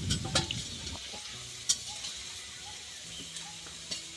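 Potatoes sizzling in hot oil in a pan, with a few sharp clinks of a spoon or spatula against the pan as the fried potatoes are stirred and lifted out.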